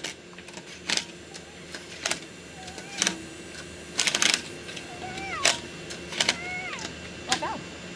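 Sharp clicks and taps about once a second, with a quick run of clicks about halfway through, as lug nuts are fitted and threaded by hand onto a Honda Civic's wheel studs. Short high calls that glide up and down sound between the clicks.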